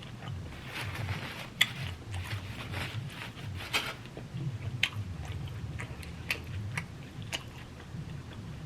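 Close-up eating sounds: a person chewing a mouthful of a Chipotle burrito bowl, with irregular wet clicks and light crunches from the lettuce and salsa.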